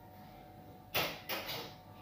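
Kitchenware handled at the sink: three quick clatters and scrapes in a row, about a second in.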